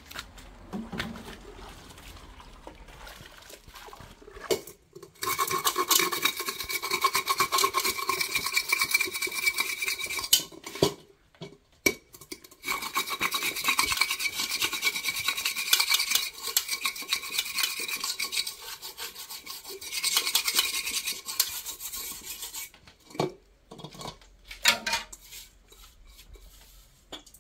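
A spoon scraping burnt rice off the bottom of a cooking pot in rapid strokes, the pot ringing under them. The scraping comes in two long spells with a short pause between, followed by a few knocks.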